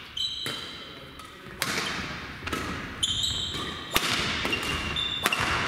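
Badminton rally: sharp racket hits on the shuttlecock about once a second, each echoing in the hall, with short high-pitched squeaks from players' shoes on the court floor.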